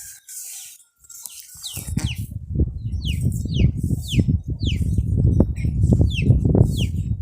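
A bird repeats a short falling chirp over and over, roughly every half second, from about two seconds in. Under it a loud, low rumble begins at the same moment.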